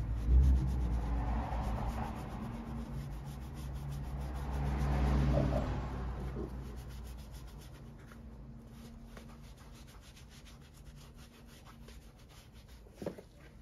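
A sponge scrubbing over the leather of an Irish Setter boot: a soft, uneven rubbing that swells about five seconds in, then grows fainter. A single short knock comes near the end.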